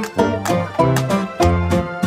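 Instrumental background music with plucked strings and a steady beat.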